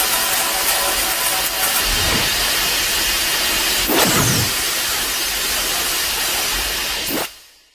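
A Kiryu (MFS Type-3 Mechagodzilla) sound effect from the 2002–2003 Godzilla films: a loud, steady mechanical hiss like rushing steam or jet exhaust, with a low thud about four seconds in. It fades out quickly near the end.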